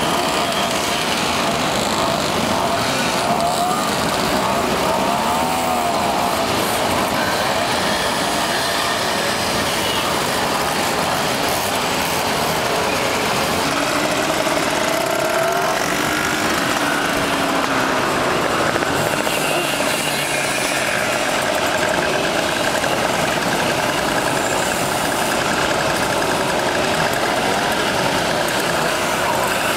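Many small two-stroke moped engines running together as a long column of mopeds rides past, their buzzing pitches overlapping and rising and falling as riders throttle up.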